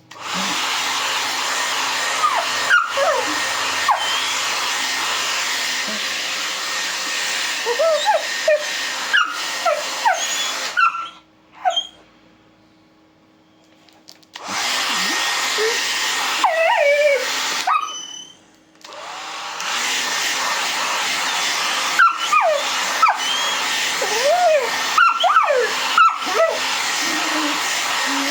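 Hair dryer blowing, switched off twice and back on, with a dog whining over it in many short rising and falling cries.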